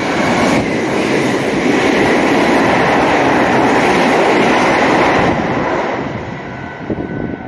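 A Meitetsu electric passenger train running through a station at speed without stopping, its wheels on the rails and the rush of its passing cars loud at close range. The noise swells about half a second in, holds steady for nearly five seconds, then fades as the train recedes.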